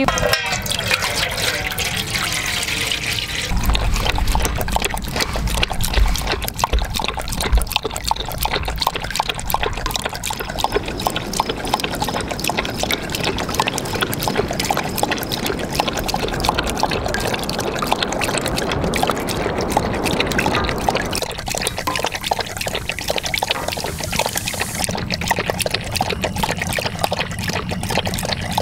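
Water poured from a plastic jug into a stainless steel dog bowl, running and trickling without a break.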